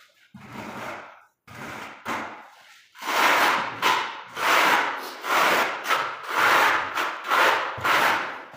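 Steel notched trowel scraping through tile adhesive on a concrete floor in back-and-forth strokes: a few softer strokes at first, then a steady run of loud strokes about one a second from about three seconds in.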